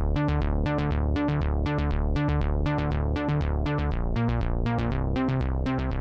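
Tone2 Saurus2 software synthesizer playing its 'Ana log arp' arpeggiator preset. It is a fast run of short synth notes, about six a second, each bright at the attack and darkening quickly, over low bass notes.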